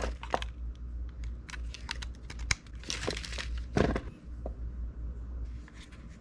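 Packaging crinkling and rustling with scattered clicks as the scan tool's accessories, such as its charging cable, are unpacked and handled, with a denser burst of crinkling about three seconds in and another near four seconds.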